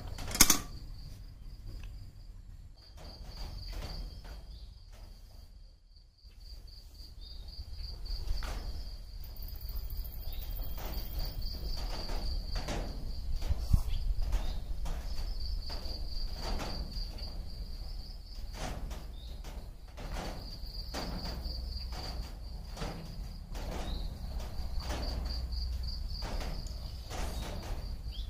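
Crickets chirping in a high, finely pulsing trill that breaks off and resumes now and then. Faint knocks about once a second run through most of it, and one sharp knock comes right at the start.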